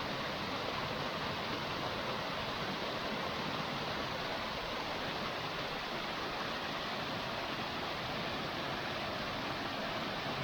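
Waterfall on a small stream, water pouring steadily in an even, unbroken rush.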